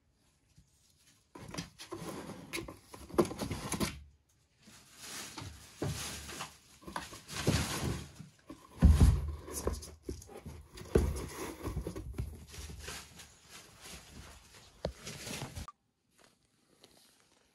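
A small kitten scrambling across the floor and into a cardboard box: quick paw patter, scratching and rustling against the cardboard, with a heavier bump about halfway through. The noise stops abruptly near the end.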